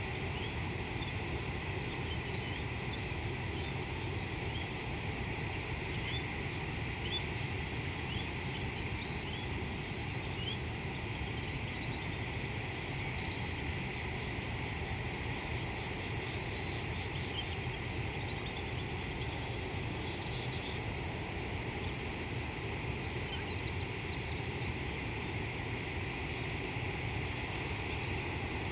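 Steady outdoor bush ambience: a constant low rumble under a continuous high hiss, with short high chirps scattered through the first ten seconds or so.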